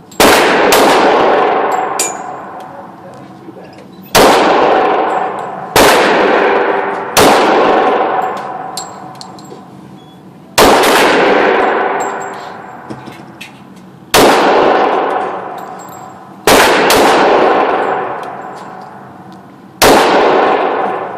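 Handgun shots, eight in all, fired singly at uneven gaps of about one and a half to three and a half seconds. Each crack rings on in a long echo off the walls of the indoor range lane.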